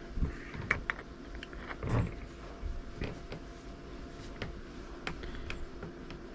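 The opened housing and boards of a wireless backup camera being handled: scattered light clicks and a soft knock about two seconds in.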